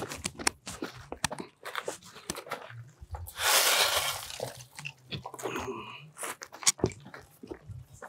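Shovel working gravel on top of a stone-filled wire-mesh gabion basket, spreading the gravel filter layer into the gaps between the stones. Stones crunch and clink throughout, with one loud gritty scrape of the blade through the gravel about three and a half seconds in.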